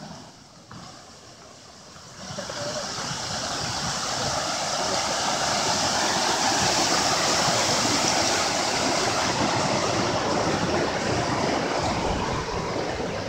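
Mountain river rushing over rocks and small cascades, a steady roar of water that swells about two seconds in and then holds.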